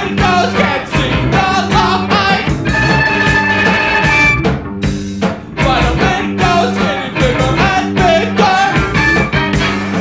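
Rock band recording: drum kit, bass and guitar playing, with singing.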